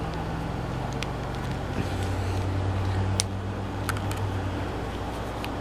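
A few sharp clicks from a plastic action figure's ratchet joints as its legs are posed, over a low hum that swells in the middle.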